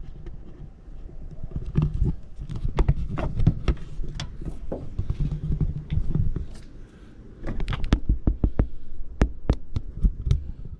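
A trolling motor being handled on its bow mount: a run of sharp clicks and knocks over a low rumble, with a short lull about two thirds of the way through.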